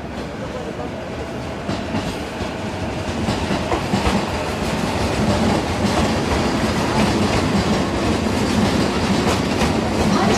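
A train running through on the rails, its wheels clattering over the rail joints, growing louder as it comes closer.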